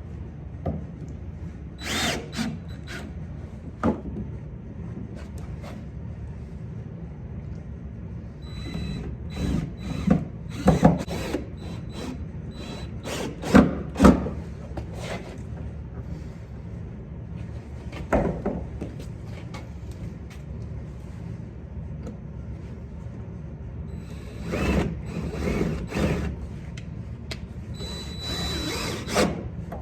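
Hand and power tools working to fasten a steel vise's mounting plate to a wooden workbench. There are scattered clicks and knocks of metal parts and tools, with a cluster in the middle, and short runs of a power drill near the end.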